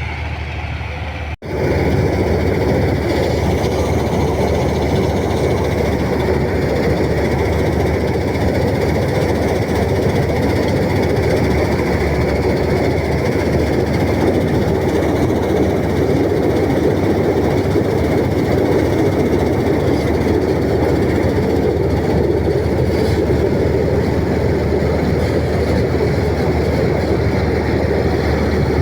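Combine harvester running steadily, its engine and machinery making a loud, even noise that drops out for a moment about a second and a half in.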